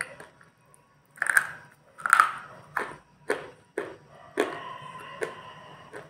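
Close-up crunchy chewing: two loud crunching bites about a second apart, then a run of sharp crunches roughly every half second as the food is chewed.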